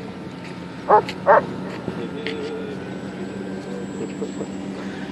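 A dog barks twice in quick succession about a second in, two short loud barks.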